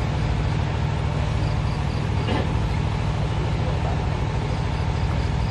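Steady low engine rumble, running evenly.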